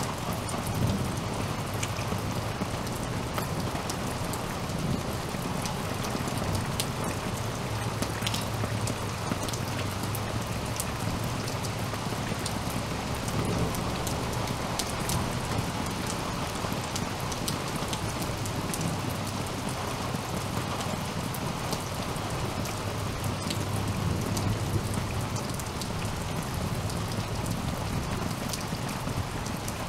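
Steady rain falling, a continuous hiss with many individual drops ticking close by.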